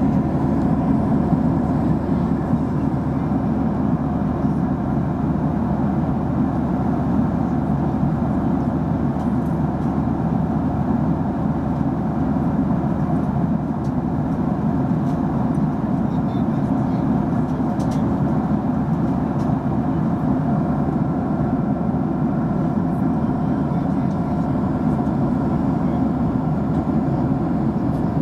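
Steady low drone of an airplane in flight, engine and airflow noise heard inside the passenger cabin.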